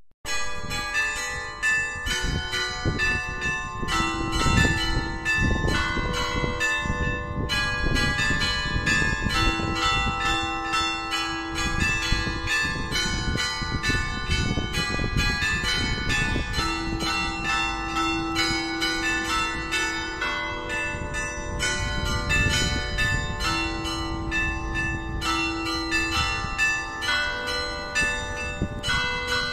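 Church tower bells ringing to call the faithful to mass: rapid, overlapping strokes at several pitches that run on without a pause, the tones ringing into one another.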